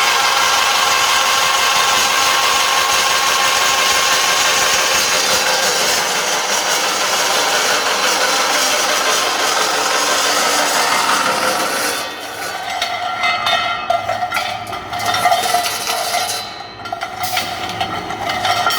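Pipe-cutting machine running and cutting metal pipe, a steady loud grinding noise with a few steady tones. About twelve seconds in it drops to a quieter, more uneven run with a lower hum.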